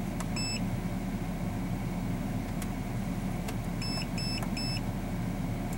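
Short high electronic beeps from the Autel AL-539 scan tool's built-in speaker as its keypad buttons are pressed: one about half a second in, then three quick ones about four seconds in. A steady low hum from the car runs underneath.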